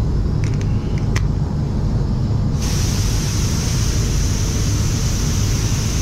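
Steady low rumble of spray booth fans, with a few light clicks early on; about two and a half seconds in, a steady hiss of compressed air starts suddenly and keeps going.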